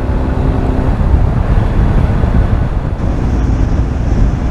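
Motorcycle running at road speed with wind rushing over the microphone, mostly a steady deep rumble.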